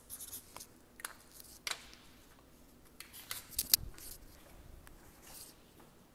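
Marker strokes on paper at the start, then light handling noises: scattered clicks and rustles, with one louder knock a little under four seconds in.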